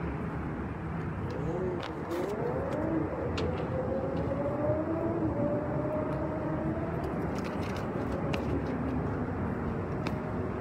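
Steady city street noise: the even rumble of traffic, with faint wavering sounds in the first few seconds.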